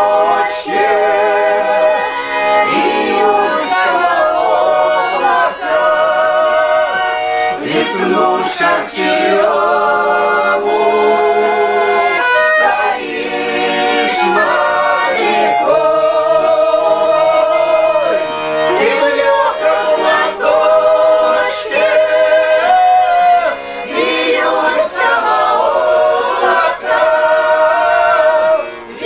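A group of men and women singing a song together, with long held notes.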